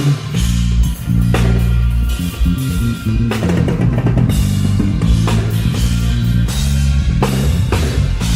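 A live rock band playing together at a sound check: drum kit with bass drum and crashes, over electric guitar and bass.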